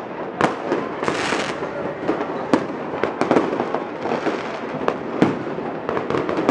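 Many fireworks and firecrackers going off around, in rapid irregular bangs and cracks over a continuous crackle, with a short hiss about a second in.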